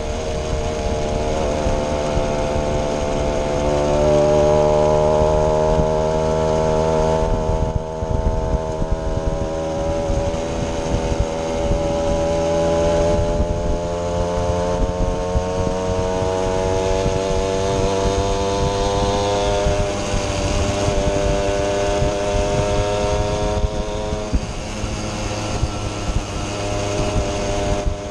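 Several small two-stroke moped engines running together at riding speed, their pitch drifting gently up and down.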